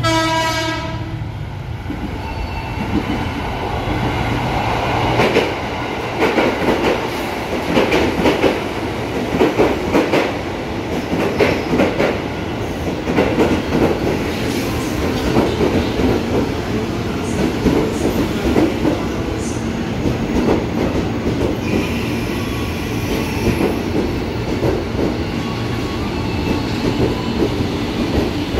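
A KRL commuter electric train sounds a short horn blast, then runs in along the platform with its wheels clattering over the rail joints in an uneven run of knocks over a continuous rumble. Near the end a steadier low hum comes from the train as it slows.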